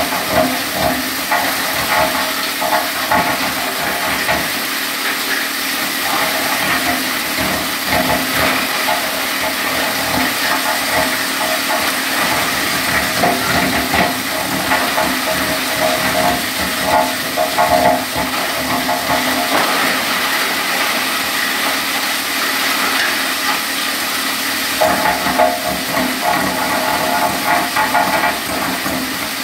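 Wood crusher machine running, a steady machine whine under a loud hiss with dense, irregular crackling throughout.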